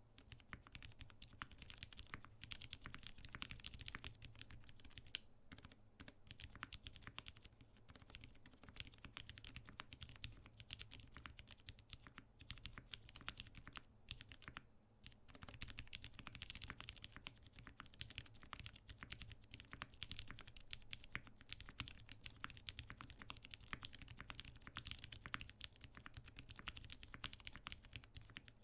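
Steady typing on a custom 60% mechanical keyboard: retooled Cherry MX Black linear switches, lubed, on a brass plate, under GMK doubleshot keycaps. The key strokes come in a dense, continuous patter, with a couple of brief lulls.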